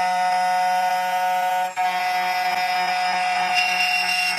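CNC key cutting machine's spindle motor running, a steady high whine of several fixed tones with a brief dip about two seconds in.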